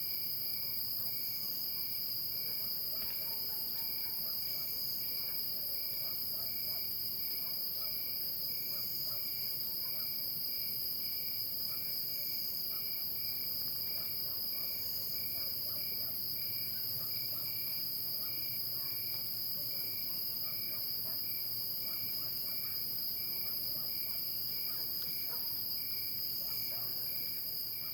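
Night insect chorus of crickets and other insects: a steady high-pitched trill over a lower chirp pulsing at an even, regular rate, both running unbroken.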